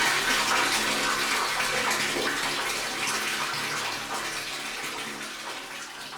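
Water running into a tank: a steady rushing, splashing pour that gradually fades away over the last couple of seconds.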